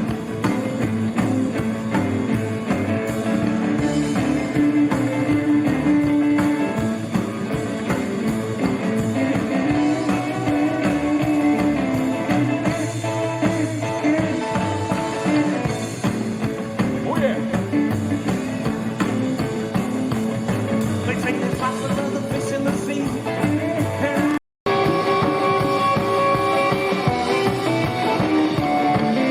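Rock and roll band playing a guitar-led song. The sound cuts out for a split second about 24 seconds in.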